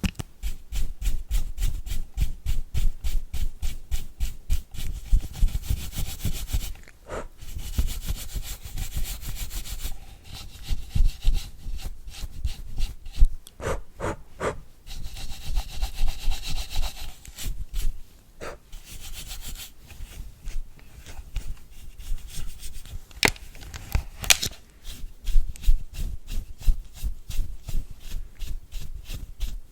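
A brush scrubbed rapidly back and forth close to the microphone in quick rhythmic strokes, with a few short pauses and several single sharp taps or clicks among them.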